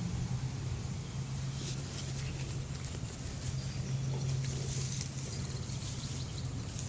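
Hands sifting and scraping through loose garden soil and rustling a dug-up potato plant, many small crackles and scrapes, over a steady low hum.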